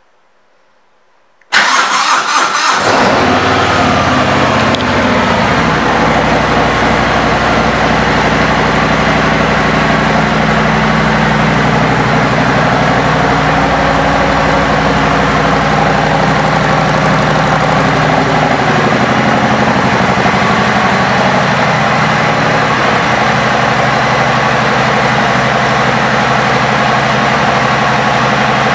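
2022 Harley-Davidson Fat Bob 114's Milwaukee-Eight 114 V-twin, with an aftermarket exhaust, starting up about a second and a half in, then idling steadily.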